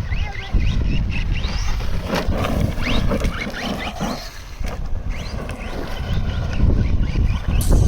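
Electric motor of a radio-controlled truck whining in repeated short rising bursts as the throttle is blipped, over heavy wind rumble on the microphone.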